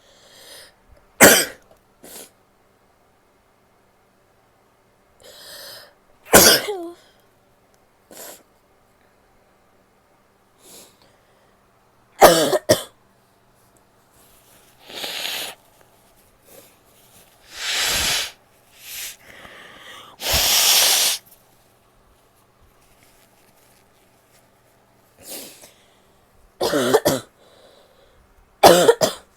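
A woman coughing and sneezing in a string of sharp, loud fits, with a few longer, second-long blows of the nose in the middle.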